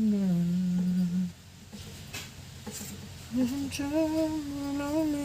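A person humming a tune: a held note that sags in pitch for about a second, a pause, then from just past the halfway point a longer, wavering hummed line. Faint clicks sound in the pause.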